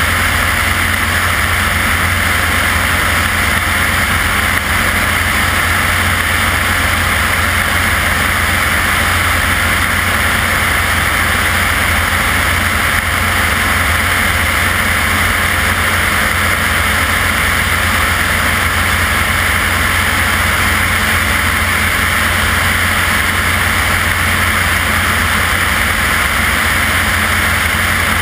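Propeller-driven aircraft in cruise flight, heard from on board: a steady engine-and-propeller drone with a low hum and a constant rush of airflow over the airframe.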